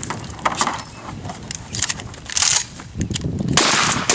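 Metallic clacks and knocks from 12-gauge pump-action shotguns being handled and worked during a speed-loading contest, then a loud bang near the end.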